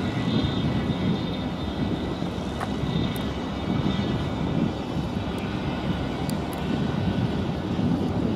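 Engines of a large RORO cargo ship getting under way: a steady low rumble with a faint, steady high whine above it.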